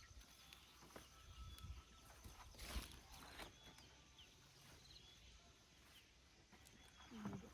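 Near silence: faint outdoor background with a few soft rustles and clicks and some brief, faint high chirps.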